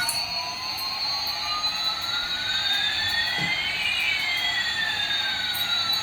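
Electronic jet-engine sound effect from a toy Airbus A380's sound chip: a steady hiss with one whine slowly rising and another slowly falling, crossing about two-thirds of the way through.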